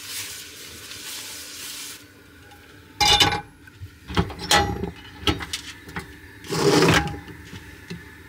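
Paper towel rubbing oil around a frying pan, then the pan knocking and scraping against the gas hob a few times, the loudest knocks about three seconds in and again near seven seconds.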